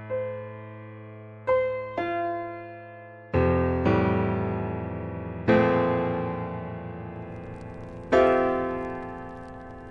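Slow piano music: chords struck every one to two seconds and left to ring out and fade.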